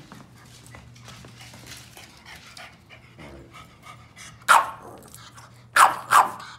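Boston terrier panting quietly, then barking: one sharp bark about four and a half seconds in and two more in quick succession near the end.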